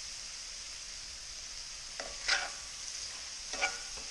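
Pheasant meat, onions and celery sizzling in butter and oil in a pan as flour is stirred in to start the gravy, a steady hiss. A utensil scrapes through the pan three times in the second half.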